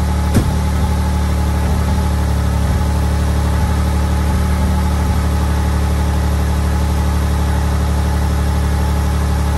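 Six-cylinder car engine idling steadily, running after being brought back to life, with a single sharp tick about half a second in.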